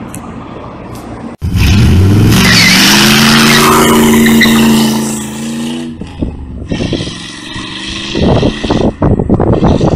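1990 Chevrolet Camaro RS doing a burnout: from just over a second in, the engine revs up and holds high while the rear tyres squeal for about four seconds. Then the engine note drops away, leaving a quieter, uneven rumble.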